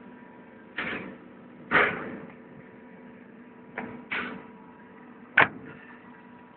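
A Revolver padlock being handled and worked: a series of about five separate metal clicks and clunks, the sharpest and loudest a little past the middle.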